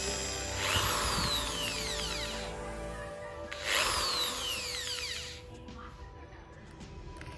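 Eposch 10 mm corded electric drill run in two short bursts, about one and four seconds in. After each burst the motor whine falls in pitch as it winds down. Background music plays underneath.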